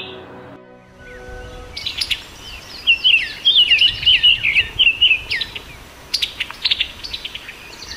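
Summer tanager calling: starting about two seconds in, a quick run of short down-slurred chirps, then a series of sharp clicking notes near the end.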